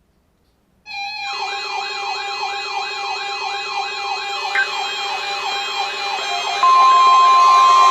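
Emergency alert attention signal starting about a second in: a siren-like wailing tone sweeping up and down about three times a second. A steady, louder high tone, the warning alarm tone that triggers weather radio receivers, joins near the end.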